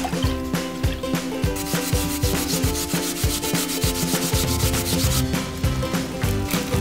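Nagaimo (Chinese yam) being grated on a hand grater: rapid rasping strokes from about a second and a half in until about five seconds in, over background music with a steady beat.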